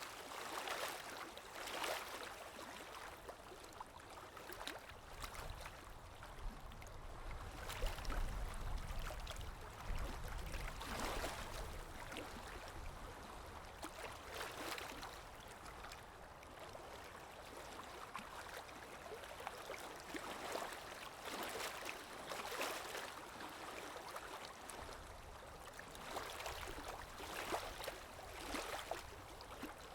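Water lapping, small waves splashing in irregular swells every second or two, with a low wind rumble underneath that grows louder for a few seconds about a third of the way in.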